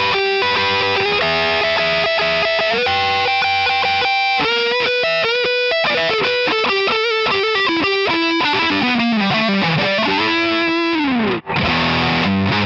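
Telecaster-style electric guitar on its neck pickup, played with distortion: lead lines of held notes, with string bends and slides. The sound cuts out for an instant near the end, then comes back on chugging chords.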